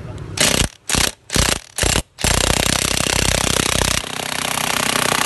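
Makita DTW1001 cordless 1/2-inch impact wrench driving a nut on a bolt: four short blips of the trigger, then hammering steadily without a break from about two seconds in.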